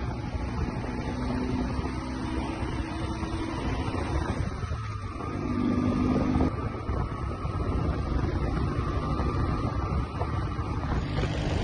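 Motorcycle engine running while riding along a rough road, its pitch shifting as it changes speed, with wind buffeting the microphone.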